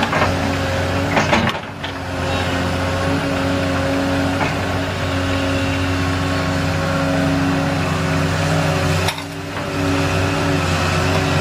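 Volvo EC160C excavator's diesel engine running steadily under hydraulic load while it dumps a bucket of clay into a dump truck. A few clanks near the start, and the engine note drops off briefly twice.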